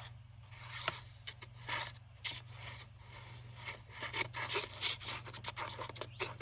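Paper being rubbed and handled on a desk: a run of short, irregular scraping and rustling strokes over a steady low hum.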